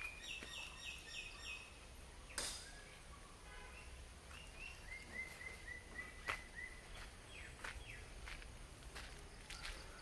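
Birds calling outdoors in runs of short, quickly repeated falling chirps, one run near the start and another in the middle. A few sharp clicks or knocks cut in, the loudest about two and a half seconds in.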